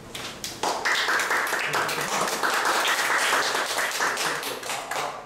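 Audience applauding: a dense patter of many hands clapping that swells about half a second in and dies away near the end.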